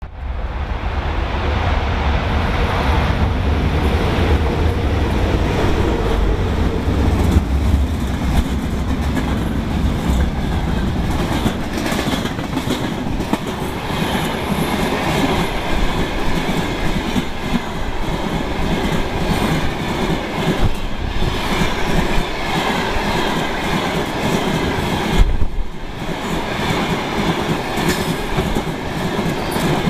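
A freight train of loaded hopper wagons passing close by on the near track: a continuous heavy rumble and clatter of the wagons' wheels over the rails. There is a deep low rumble for the first seven seconds or so, and one sharp bang about 25 seconds in.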